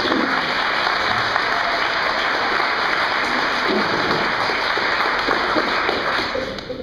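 Audience applauding, a steady round of clapping that dies away near the end.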